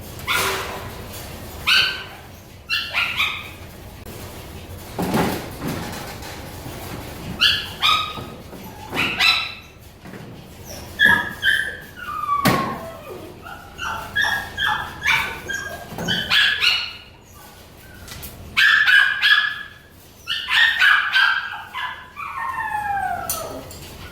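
Dogs barking and yipping in short clustered bursts, mixed with whining calls, including falling whines near the end.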